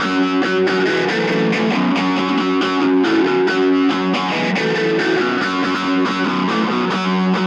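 Background music: an electric guitar piece with distortion and a steady rhythm.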